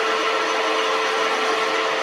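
Metal lathe running steadily, a constant machine noise with a steady whine in it.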